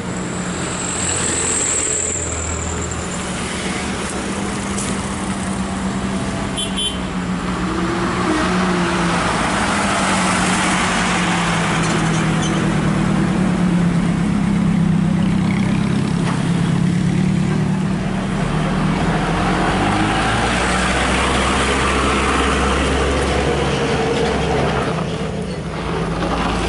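Heavy diesel truck engine running steadily under load at low speed, its pitch wavering slightly as it pulls. A brief high-pitched squeal sounds about a second in.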